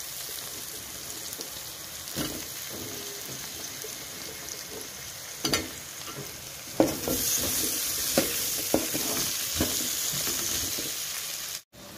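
Cubed raw potatoes sizzling in hot oil in a steel pan, with a steel ladle scraping and knocking against the pan as they are stirred. The sizzle grows louder about seven seconds in, and the sound cuts out briefly just before the end.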